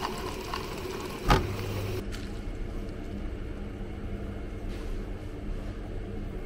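A drink dispenser's stream pours into a plastic cup and stops in the first second. A single loud knock follows a little over a second in. After that there is a steady low hum.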